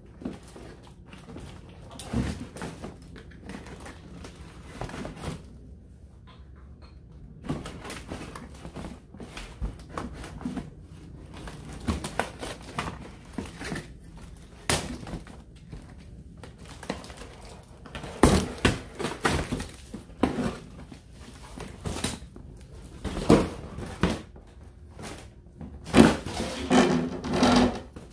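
Cardboard packaging being handled: a toy truck's retail box worked out of a shipping box and its cardboard display tray slid out. It makes irregular scraping, rustling and knocks, loudest about two-thirds of the way through and near the end.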